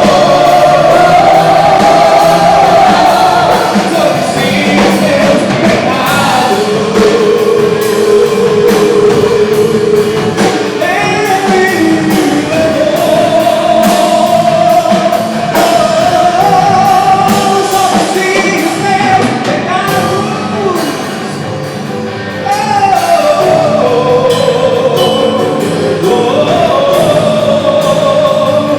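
Gospel worship song: a youth choir singing long held notes over band accompaniment. The music drops back for a moment about twenty seconds in, then returns at full strength.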